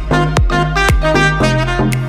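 Background dance music: a steady kick drum about twice a second under a melody of held, horn-like notes.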